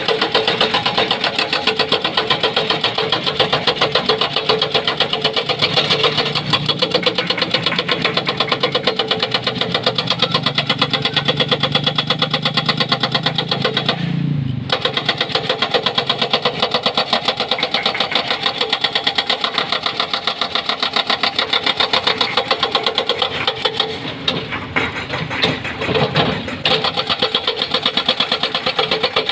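Hydraulic breaker on a Doosan excavator hammering rock in rapid, steady blows, over the excavator's diesel engine. The hammering stops briefly about halfway through, then resumes and turns uneven for a few seconds near the end.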